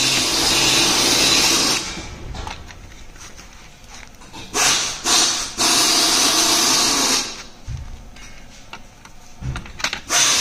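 Cordless drill-driver running bolts into a motorcycle's fork guard plate in bursts. It runs for about two seconds at the start, gives two short blips around the middle, then runs again for a second and a half. Light clicks and knocks sound between the runs.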